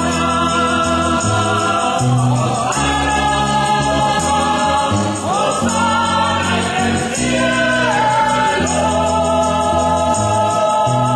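Choir singing a Spanish-language hymn, accompanied by an acoustic bass guitar playing sustained low notes and a strummed acoustic guitar.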